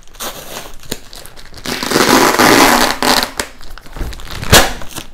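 Adhesive plastic packing-slip pouch being peeled and torn off a shipping package, crinkling plastic and paper. The loudest ripping comes about two seconds in, and there is a single sharp crack near the end.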